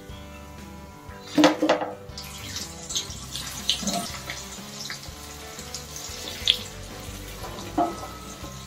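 Prawns bubbling in hot oil in an iron kadai, with a steel slotted spoon and a spoon clinking and scraping against the pan several times, the loudest knock about a second and a half in. Background music plays throughout.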